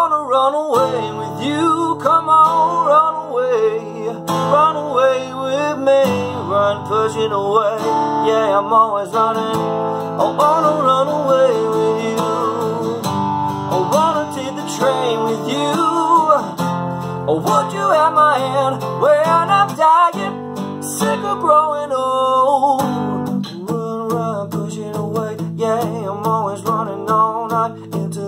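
Acoustic guitar strummed steadily in a pop-rock song, with a man singing over it.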